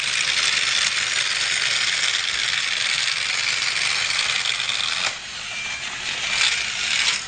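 Battery-powered TrackMaster toy train running on plastic track: a steady mechanical clatter that dips briefly about five seconds in and cuts off sharply near the end.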